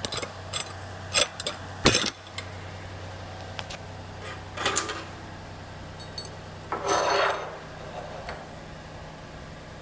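Steel plates knocking and clanking as they are handled and set down on a steel bench. The loudest knock comes about two seconds in, with a longer scraping clatter around seven seconds, over a steady low hum.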